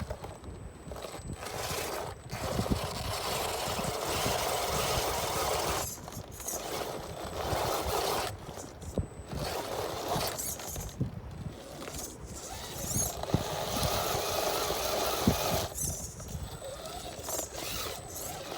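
1/10-scale RC rock crawler's electric motor and full-metal gear drivetrain whirring in several stretches of a few seconds, with short pauses between them as the throttle is let off.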